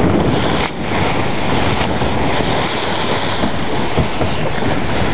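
Wind buffeting the microphone over the rush of choppy water along a small racing sailboat's hull. It is a loud, steady noise that dips briefly a little under a second in.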